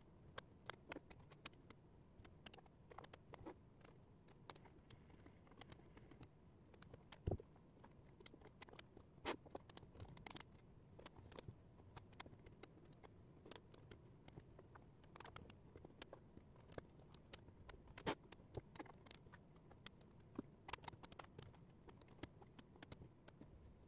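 Thin wooden jigsaw puzzle pieces clicking and scraping on a tabletop as they are picked up, slid and fitted: a faint, rapid, irregular patter of small taps, with a few louder knocks.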